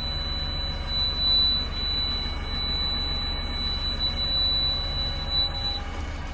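JCB 3DX backhoe loader's diesel engine running steadily, with a thin high-pitched whine over it that stops near the end.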